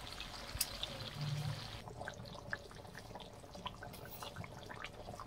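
Chicken curry in an aluminium wok: a steady hiss for about the first two seconds, then an abrupt change to the thin potato-and-chicken gravy boiling, with many scattered bubbling pops.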